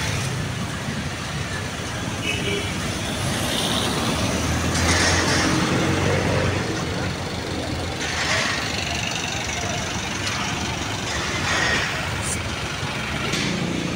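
Street traffic: motor vehicle engines running, with a low engine drone and several vehicles passing close by.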